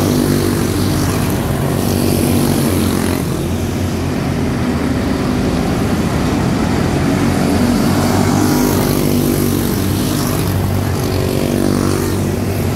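Several quarter midget race cars with Briggs & Stratton Animal single-cylinder four-stroke engines running at racing speed together on a dirt oval. The engines keep up a steady drone whose pitch drifts up and down as the cars lap and pass.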